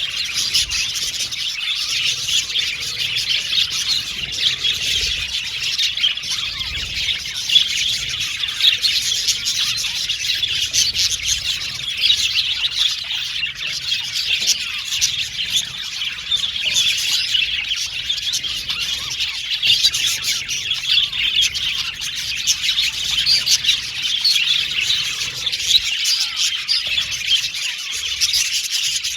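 A colony of budgerigars chirping and chattering together, many short overlapping calls in a constant high-pitched warble.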